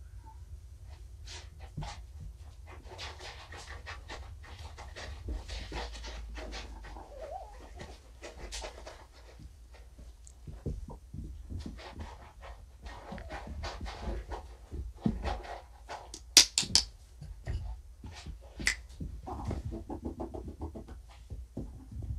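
Kittens scuffling and moving about on a fabric-covered floor: soft rustling and scattered small clicks and taps, a few sharper clicks about 16 seconds in, over a steady low room hum.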